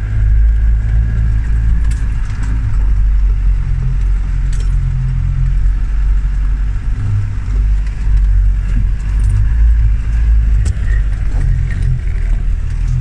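Land Rover Defender 110 engine running under load as it drives over rough ground, a steady low drone rising and falling with the throttle. Occasional loose rattles and knocks from the vehicle are heard over it.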